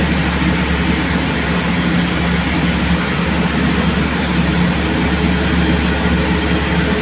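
Steady, loud engine noise with a low, even hum during the pushback of a Boeing 777-300ER by a tug and towbar.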